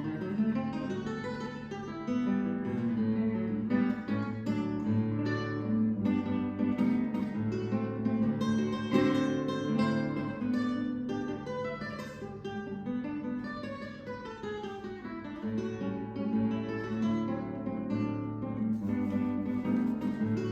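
Music played on plucked and strummed acoustic guitar, a steady run of picked notes and chords.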